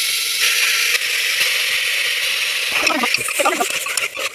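Wet, freshly washed pork pieces sizzling with a steady hiss on the hot, dry base of a preheated pressure cooker, with no oil added.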